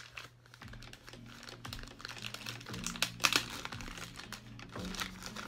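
Clear plastic packaging crinkling and crackling in the hands as it is handled and pulled open, in quick irregular crackles with a sharper one about three seconds in.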